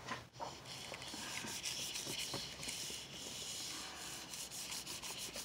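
A hand rubbing a sheet of paper laid over an inked rubber stamp, burnishing it onto the ink to take a print. It sounds like a faint, dry, papery rubbing in uneven strokes.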